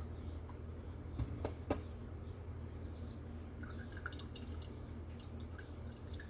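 A steady low hum with a few light clicks and taps about a second in, and fainter ticks a little later.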